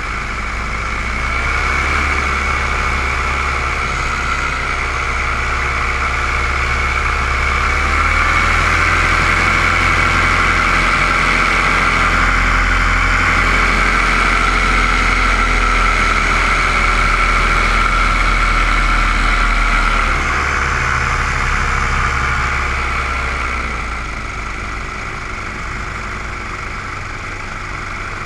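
Paramotor engine and propeller running in flight, heard from the aircraft. The engine note rises about two seconds in, rises again at about eight seconds, then drops back in two steps at about twenty and twenty-four seconds.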